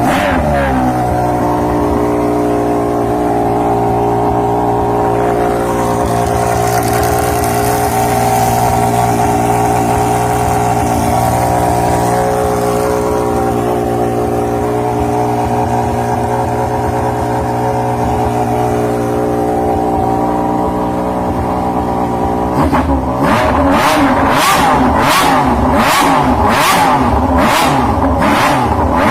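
Engine exhaust idling steadily, settling from a rev just at the start, then about 23 seconds in revved in a quick run of about nine short blips, roughly one and a half a second.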